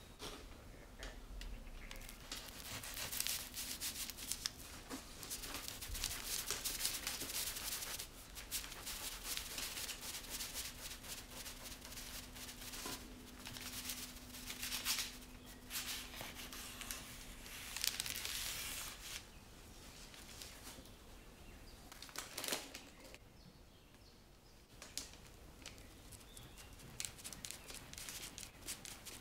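A kitchen knife cutting through the edges of a baked sponge cake sheet, with the rustle and crinkle of the parchment paper under it, in irregular bursts of scratchy noise with a quieter pause near the end.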